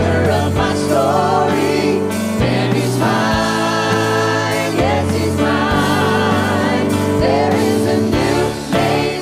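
A mixed group of men's and women's voices singing a gospel worship song together in harmony, holding long notes, over a steady instrumental accompaniment.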